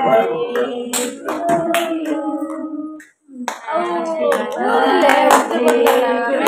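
A small group of voices singing a birthday song together, with scattered hand claps; the singing breaks off for a moment about three seconds in, then resumes.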